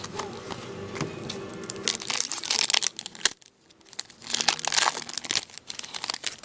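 Foil wrapper of a 2013-14 Upper Deck Series 1 hockey card pack being torn open and crinkled, in two spells of crackling with a brief lull about halfway through.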